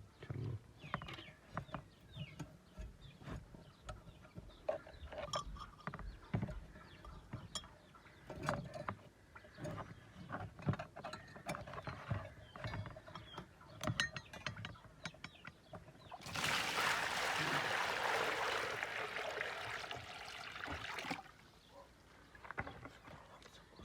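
Small hard parts clicking and knocking as they are handled, with a steady hiss lasting about five seconds a little over two-thirds of the way in.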